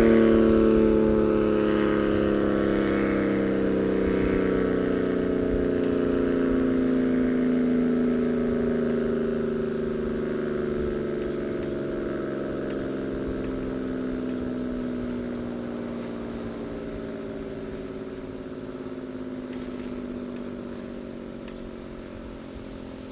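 A.C.A. Banshee-115 "Superbanshee" electromechanical outdoor warning siren winding down after its noon blast: its several-note tone slides slowly lower and fades as the rotor coasts to a stop.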